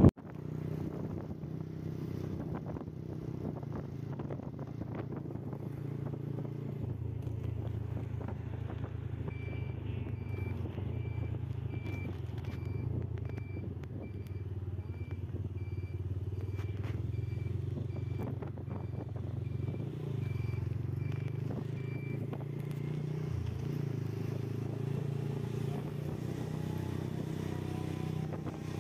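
Motorcycle engine running steadily at low revs. A series of short high beeps, about one and a half a second, starts about a third of the way in and stops about three quarters through.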